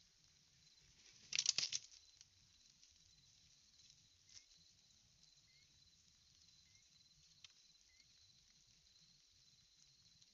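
A bald eagle landing on its stick nest: a short burst of several quick wingbeats and rustling twigs about a second and a half in, followed by a couple of faint clicks of sticks being moved.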